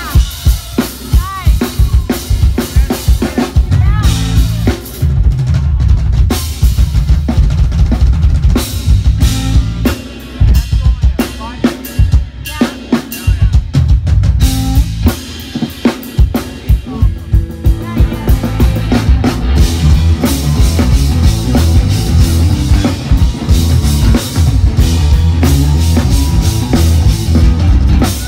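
Live rock drum kit solo: rapid kick drum, snare and rimshot hits. Around two-thirds of the way through, guitar and bass notes come in over the drums.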